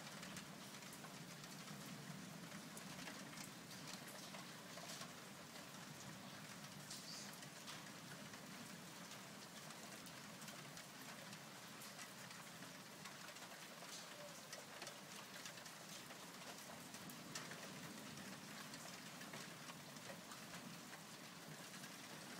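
Faint, steady rain falling during a thunderstorm, with scattered ticks of drops.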